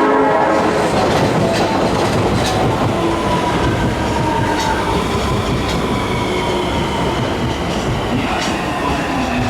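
Osaka Metro 30000A series electric train running at the platform, its motor whine slowly falling in pitch as it slows to arrive, with a few clicks of wheels over rail joints.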